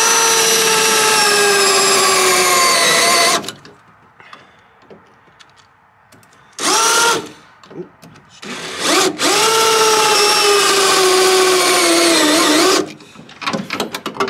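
Handheld electric power tool, drill-like, run in three bursts: two long runs with a short one between. Its high motor whine sags slowly in pitch during each run as it works into the metal of the car body.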